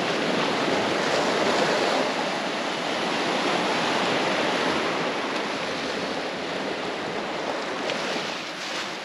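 Ocean surf washing in over a rocky shore, a steady rush of water that eases off slightly toward the end.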